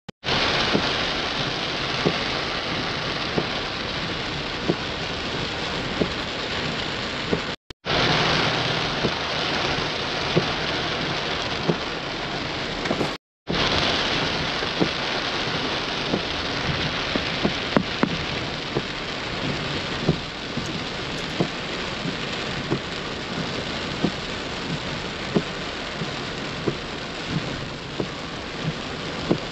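Heavy rain falling on a car's roof and windscreen, heard from inside the cabin: a steady hiss with many separate drops ticking. It cuts out briefly twice, about 8 and 13 seconds in.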